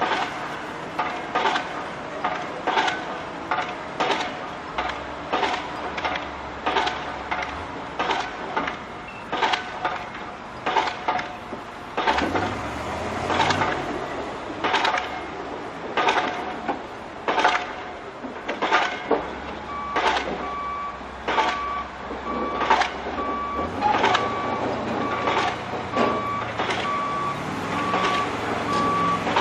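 Machinery ambience: a steady series of sharp knocks, roughly two a second, over a heavy vehicle engine running. A vehicle reversing alarm starts beeping about two-thirds of the way in.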